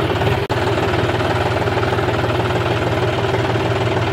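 John Deere tractor's diesel engine running steadily, with a brief break about half a second in.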